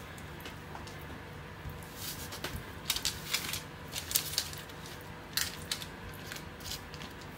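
A metal spoon spreading tomato paste over a rolled-out pizza base on baking paper: quiet, irregular scrapes and light clicks.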